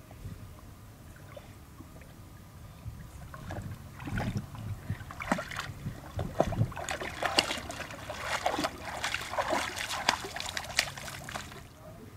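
A large dog wading through shallow pond water, its legs splashing and sloshing irregularly. The splashing starts about three and a half seconds in, grows busier, and stops just before the end as the dog steps out.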